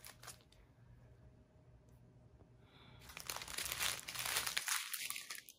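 Strip of small plastic diamond-painting drill bags crinkling as it is handled, with a brief crinkle at the start, a near-silent pause, then a longer stretch of crinkling from about three seconds in.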